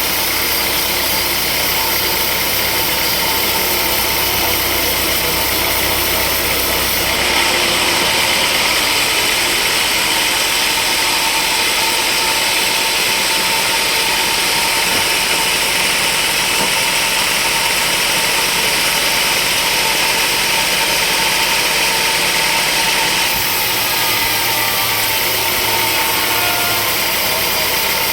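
Sawmill machinery running steadily, a loud engine-like noise. From about seven seconds in until near the end it turns brighter and thinner, then returns to its earlier sound.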